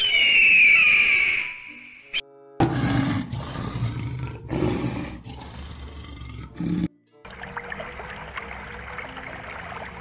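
An eagle's scream: one shrill call, falling slightly in pitch, for about two seconds. After a short gap, a lion roars low and rumbling in three or four surges for about four seconds. A steady hiss with a faint hum follows.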